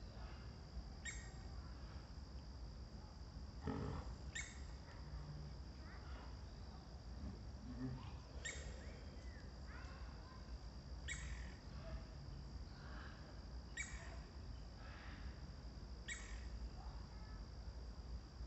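A bird gives a short, sharp, high call about six times, every two to three seconds, over a steady thin high-pitched tone and a low rumble of outdoor background noise.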